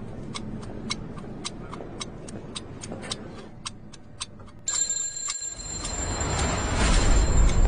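Fast, even clock-like ticking, a few ticks a second. About two-thirds of the way in, a rushing noise with a thin high whine starts and swells, with a deep rumble building under it.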